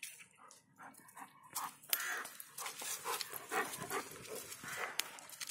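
Two long-haired German Shepherds playing, making short, irregular vocal noises that pick up about two seconds in.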